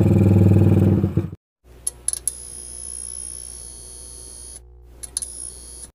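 Carburetted motorcycle engine running steadily for about a second, then cut off abruptly. A much quieter stretch follows, with a steady high-pitched whine and a few sharp clicks.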